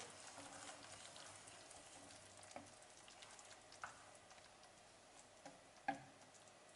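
Faint stirring of tomato sauce in a frying pan with a wooden spatula, with a few light taps of the wood on the pan, the loudest about six seconds in.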